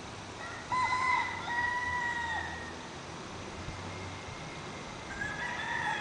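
Rooster crowing: one crow about a second in, lasting roughly two seconds, and a second crow starting near the end.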